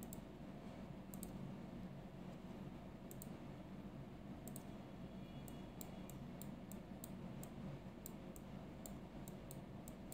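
Faint clicks of a computer mouse button as strokes are drawn in a paint program: a few at first, then about two a second from about halfway through, over a steady low hum.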